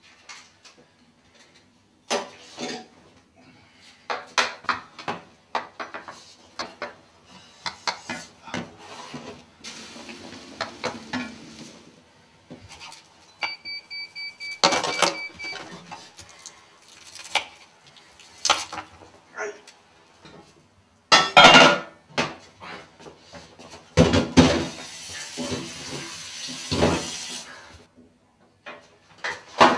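Kitchen work sounds: pots, pans and utensils clinking and knocking, and a knife cutting on a wooden board. About halfway through there is a short run of electronic beeps.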